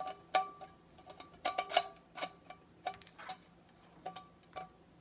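Stainless steel camp cooking pot being handled: irregular light metallic clicks and taps, about a dozen, as its folding handle knocks against the pot, each with a short ring.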